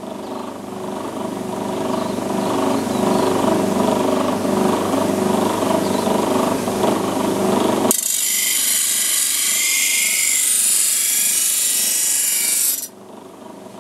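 Steel blade of a pair of sheep hand shears being ground against the spinning abrasive disc of a plate grinder. For about eight seconds it is a rough, lower grinding rub. Then it abruptly switches to a bright, high-pitched grinding hiss as sparks fly, and it stops suddenly near the end.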